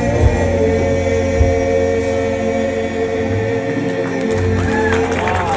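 Gospel choir holding a long final chord at the end of a hymn verse over a low accompaniment. Near the end a single voice comes in with pitch slides.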